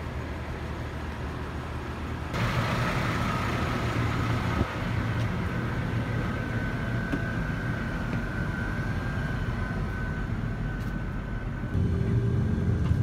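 Coach bus engine running, heard from inside the cabin as a steady low hum with a faint whine above it. The sound steps up abruptly about two seconds in and again near the end.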